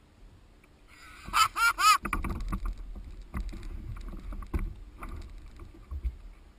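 A man's short burst of laughter, three quick rising-and-falling notes about a second and a half in. It is followed by water sloshing and scattered knocks against a plastic sit-on-top fishing kayak as he moves about in it.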